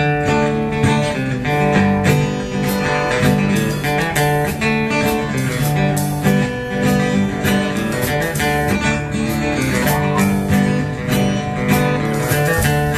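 A country band playing the instrumental intro of a song: strummed acoustic guitar over electric bass and drums, with a steady dance beat and no vocals yet.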